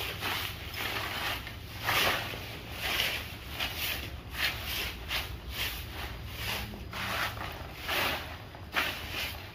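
Brooms sweeping leaf litter across the ground: a run of irregular scratchy strokes, about one or two a second.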